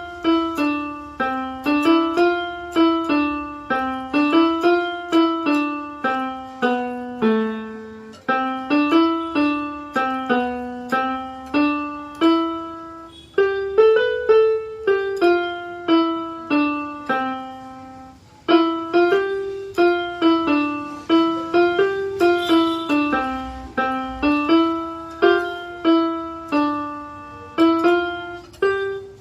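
Electronic keyboard in a piano voice playing a simple melody of evenly paced notes over a lower line, in phrases with brief pauses between them.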